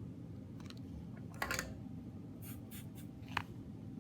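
A few light scrapes and sharp clicks from small soldering tools working solder braid against a circuit board while desoldering, over a steady low hum.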